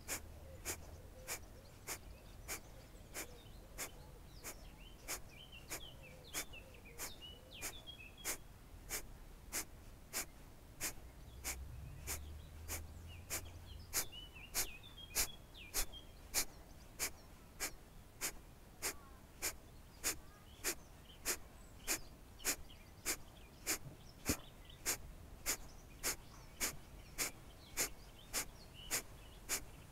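Kapalabhati breathing: a steady train of short, forceful exhalations through the nose, each a sharp puff, a little under two a second, getting louder about halfway through.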